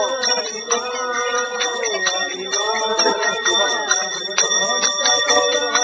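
Voices singing a devotional chant (kirtan), with small hand cymbals striking on a steady beat and ringing.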